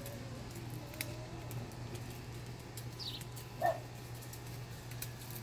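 Outdoor animal sounds over a steady low hum: a high, falling bird chirp about halfway through, and one short, louder animal call about two-thirds of the way in.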